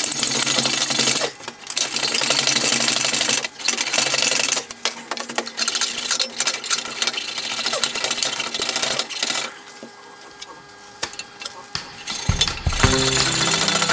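MIG welding arc crackling in runs of a few seconds with brief breaks between them, and a longer quieter pause about ten seconds in before it starts up again.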